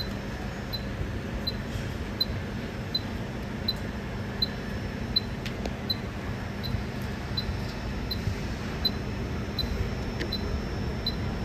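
Steady low hum of workshop bench equipment, with a faint high-pitched tick repeating about every 0.7 seconds and a single light click about halfway through.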